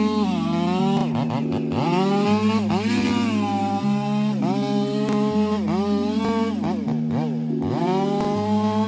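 Two-stroke chainsaw revving again and again, its pitch rising sharply and dropping back about every second, over background music.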